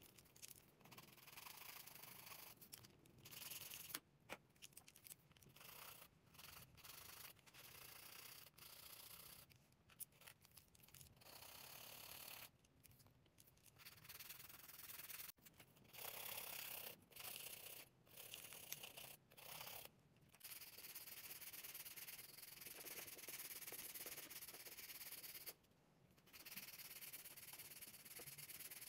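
Hand nail file scraping back and forth across the tips of long artificial nails, in runs of quick strokes broken by short pauses.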